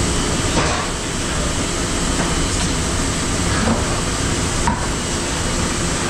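Commercial dish-room machinery running: a steady loud rush with a constant low hum. A few light clanks of kitchenware come through, about half a second, three and a half and four and a half seconds in.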